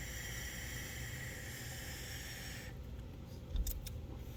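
Vape mod being fired and drawn on: a steady hiss of airflow and coil vapour with a faint whistle in it, stopping abruptly about two-thirds of the way in, followed by a few clicks and a low thump of handling.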